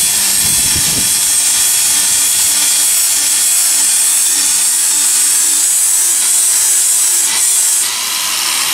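Angle grinder with an abrasive disc grinding a piece of tree wood: a steady high-pitched whine over rough rasping. It eases slightly about eight seconds in, then carries on.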